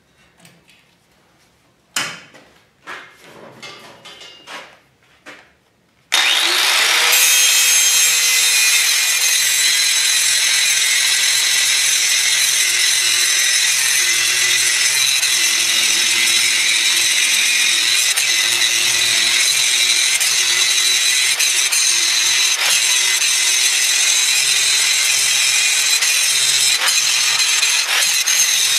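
A few clicks and knocks of handling, then, about six seconds in, an angle grinder spins up and grinds a bevel into the edge of a 3/8-inch steel plate, running steadily and loudly under load.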